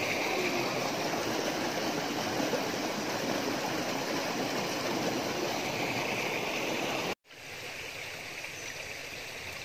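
Steady rush of flowing river water. It cuts out abruptly for a moment about seven seconds in and comes back a little quieter.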